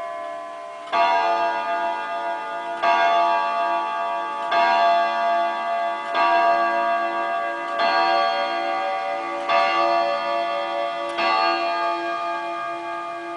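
Jawaco German chiming wall clock striking the hour: seven evenly spaced strokes, each ringing on and overlapping the next, about 1.7 seconds apart.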